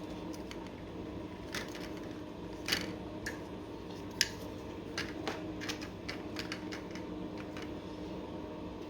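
Connector pieces of a modular hexagon wine rack being pushed into its bottle holder pieces: scattered light clicks and knocks, the sharpest about three and four seconds in, over a steady low hum.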